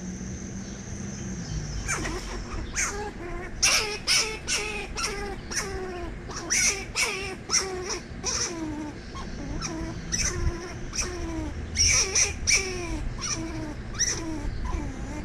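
A squirrel caught in a live cage trap gives repeated alarm calls. From about two seconds in comes a run of short barking calls, two to three a second, each falling in pitch.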